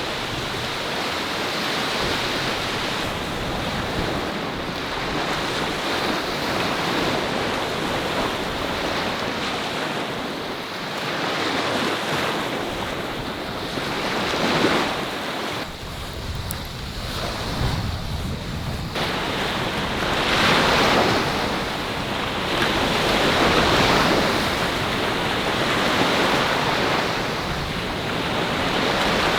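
Sea waves breaking and washing up on a beach, swelling and falling every few seconds, with wind rumbling on the microphone.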